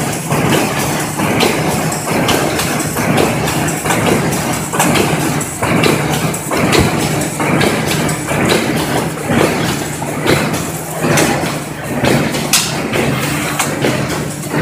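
Corrugated cardboard partition machinery running: a steady motor hum under frequent, irregular clacks and knocks.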